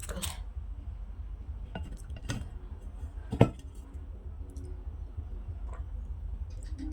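A few light clicks and one sharp clink of small hard objects about three and a half seconds in, over a steady low hum.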